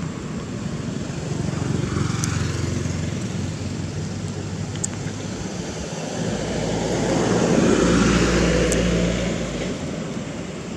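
An engine hums steadily, grows louder from about six seconds in, then fades again before the end.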